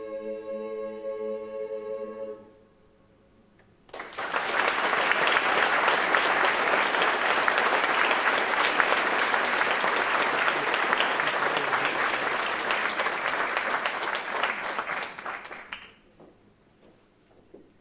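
A choir holds its final chord, which cuts off about two and a half seconds in. After a short silence an audience breaks into loud applause, which dies away near the end.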